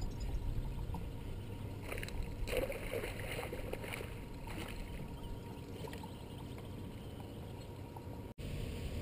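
Steady low rumble of water lapping against a boat's hull and light wind on the microphone, with a cluster of brief rattles and rustles about two to four seconds in.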